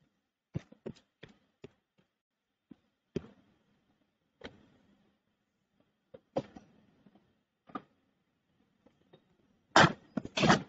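Scattered single clicks of a computer mouse as pages are scrolled and clicked through, irregular and a second or more apart. Near the end come two louder short noisy bursts.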